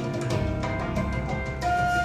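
Instrumental rock passage played through SVS Ultra Evolution Nano loudspeakers and picked up by room microphones: a held, stepping melody line over bass and drums.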